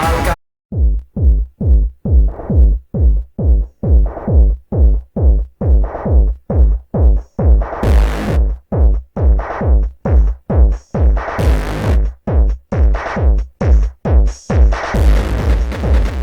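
Futurepop electronic music, instrumental break: the full mix drops out just after the start, leaving a drum-machine kick and synth pulsing together about twice a second, with a couple of short noise sweeps. The full mix comes back in near the end.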